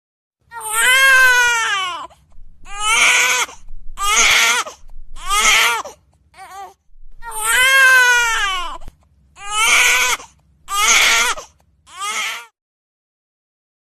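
Infant crying in a series of loud wails, each about half a second to a second and a half long, with short gasping breaks between them; the pattern runs through twice with a short pause in the middle.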